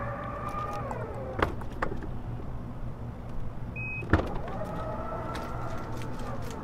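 2018 Mazda CX-5 power liftgate working. The electric motor's whine winds down and stops as the tailgate finishes closing, followed by a sharp latch click about a second and a half in. About four seconds in there is a short beep and a click as it unlatches, then the motor whines again as the liftgate rises to its set opening height.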